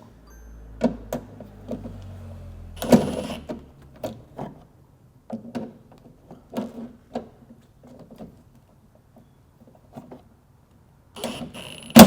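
Power driver briefly running in the trunk latch's M8 bolts, a low motor hum for the first few seconds. Then scattered clicks and knocks of tool and parts being handled, with one loud sharp knock near the end.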